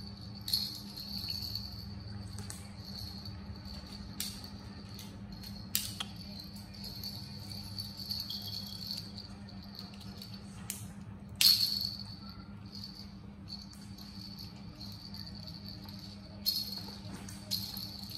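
Plastic baby toy rattle being handled and shaken, giving short jingling rattles now and then, the loudest about two-thirds of the way through. Under it runs a steady high-pitched whine and a low hum.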